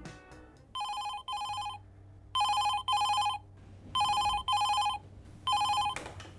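Telephone ringing with a double ring: three pairs of short two-tone rings, then a single ring cut off near the end by a click as the call is picked up.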